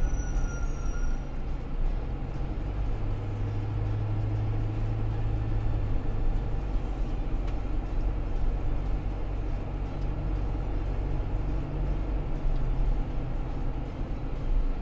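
Steady low rumble of a vehicle driving along a paved road, heard from inside the cabin: engine hum and tyre noise, with the engine note a little stronger for a few seconds near the start.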